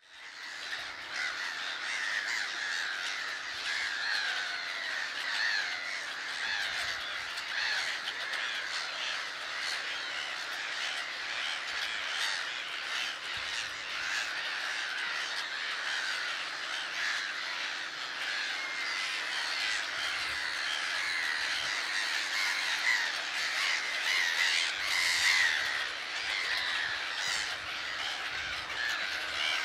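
A large colony of grey-headed gulls calling, many birds at once in a dense, unbroken chorus of overlapping calls.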